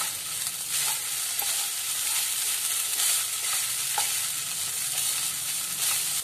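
Sweet corn fried rice sizzling in a hot kadai on high flame as it is stirred and tossed with a wooden spatula: a steady frying hiss, with a few light scrapes and taps of the spatula on the pan.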